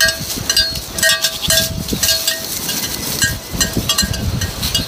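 Small metal bells or chimes clinking and ringing over and over, several light strikes a second at the same few pitches, with gusty wind rumbling on the microphone.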